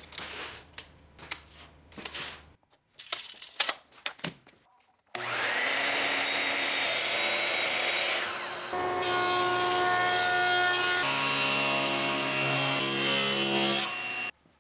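Light clicks and rubbing of hand work on a wooden slab, then a sliding miter saw running through a cut that winds down near the middle. A table saw then runs steadily through a cut in a hardwood strip, stopping just before the end.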